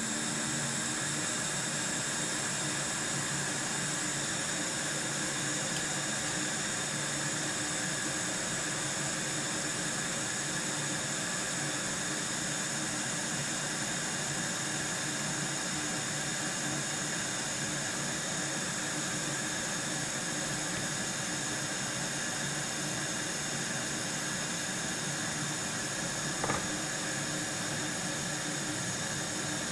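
Quick 861DA hot air rework station blowing air in its cool-down cycle: a steady, jet-like rushing hiss with a high whine through it. A brief click about 26 seconds in.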